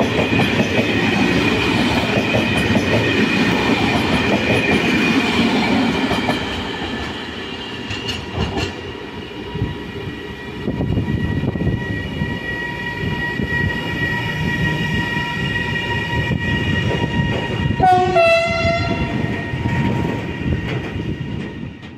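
Freight train of Sgns container flat wagons rolling past, with wheel rumble, clicking over rail joints and a steady wheel whine. It fades after about six seconds as the last wagons move away, and the rumble rises again a few seconds later. About three-quarters of the way through, a short horn blast sounds.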